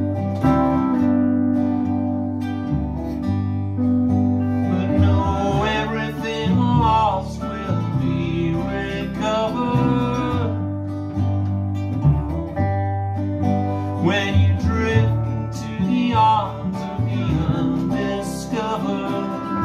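Small acoustic string band playing an instrumental break: a pedal steel guitar slides and bends between notes over cello bass notes, with guitar and 8-string baritone ukulele strumming.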